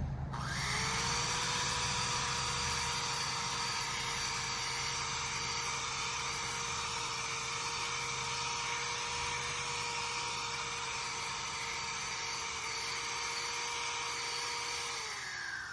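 Electric drill with a wire brush attachment spinning up and running with a steady whine while the wire bristles scrub loose, oxidized paint off cast iron with a hiss. It winds down near the end, its pitch falling as it stops.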